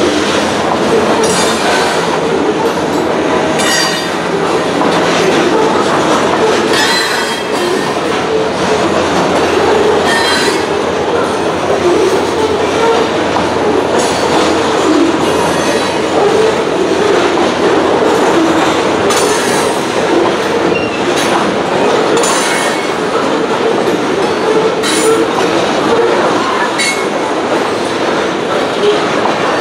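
Loaded covered hopper cars of a freight train rolling past steadily, with a continuous rumble of wheels on rail and irregular sharp clacks as the wheels cross the rail joints and the road crossing.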